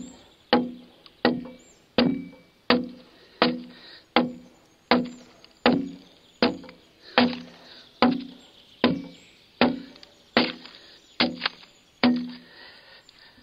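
Broad axe hewing a pine log: a steady run of sharp chops, about one every 0.7 seconds, each ringing briefly. The chopping stops about a second before the end.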